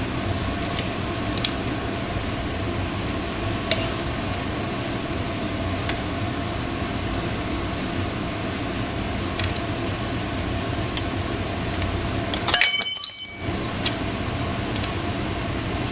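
Metal hand tools and bolt hardware clinking faintly over a steady background hum. About twelve and a half seconds in there is one loud metallic clink that rings briefly.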